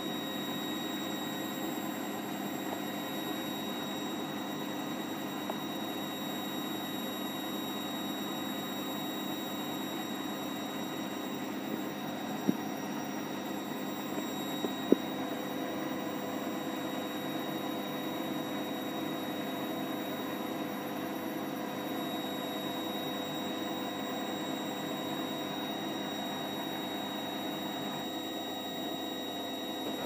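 Hotpoint WML560 front-loading washing machine on its spin cycle: a steady motor and drum hum with several high steady tones over it, and two short clicks about twelve and fifteen seconds in.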